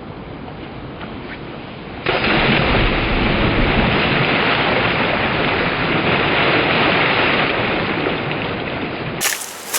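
Steady rushing noise of moving river water, jumping suddenly louder about two seconds in.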